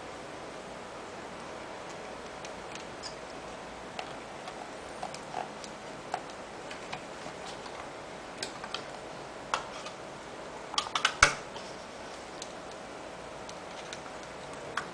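IBM Travelstar 20GB laptop hard drive in a titanium PowerBook G4 running with a faint steady whine and irregular seek clicks, with a quick cluster of louder clicks about eleven seconds in. The whine is the abnormal 'jii' noise coming from the drive.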